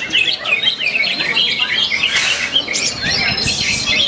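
Many caged competition songbirds singing at once: a dense, loud chorus of overlapping chirps, trills and whistled glides, with a couple of harsher raspy calls about two seconds and three and a half seconds in.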